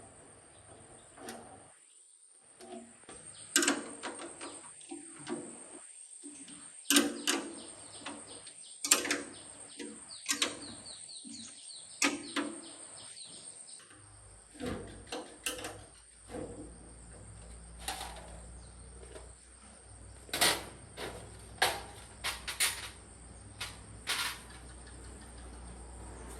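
Irregular sharp knocks and clinks of metal parts and tools being handled during work on a mini milling machine, some ringing briefly. Under them runs a steady high-pitched trill of crickets.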